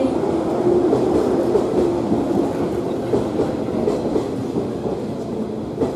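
A train running into the station on a neighbouring track, its noise slowly falling away through the few seconds.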